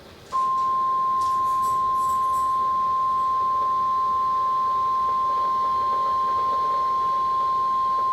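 NOAA Weather Radio warning alarm tone: a single steady, loud 1050 Hz beep that starts a moment in and holds without a break, heard through a weather radio's speaker. It signals that a new warning is about to be broadcast.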